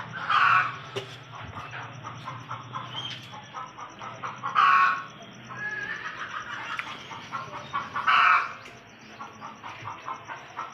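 Chickens clucking steadily, with three short, louder calls spaced about four seconds apart.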